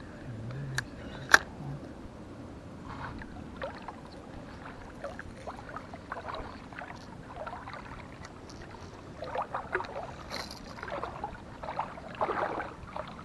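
Fishing tackle being handled at a spinning rod and reel: two sharp clicks about a second in, then a scatter of small clicks and rustles as hands work a lure and line, busier near the end.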